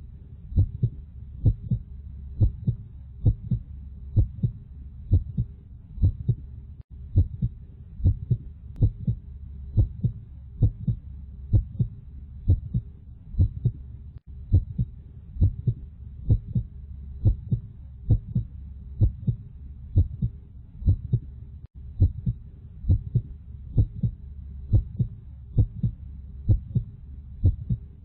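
Heartbeat sound: a steady double thump, lub-dub, about once a second over a low hum, repeating evenly as a loop with a very short dropout every seven or eight seconds.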